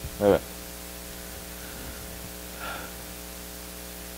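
Steady electrical mains hum and hiss in the recording, with one short vocal sound from the man, falling in pitch, about a third of a second in, and a faint soft sound a little past the middle.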